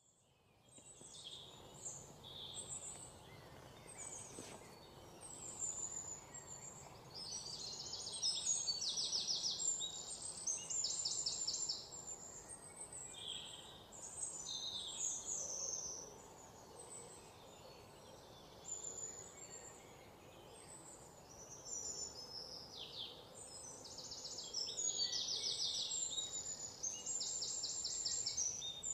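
Forest birds singing: a mix of chirps and short whistles, with a fast trill that comes again several times and is the loudest sound, over a faint steady background hiss.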